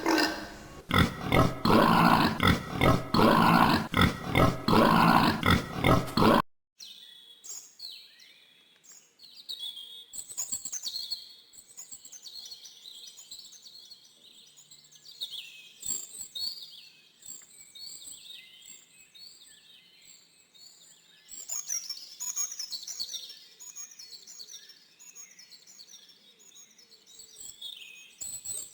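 An animal making loud, rapid grunting calls, several a second, cut off abruptly about six seconds in. Small birds then chirp and twitter, many short high calls overlapping.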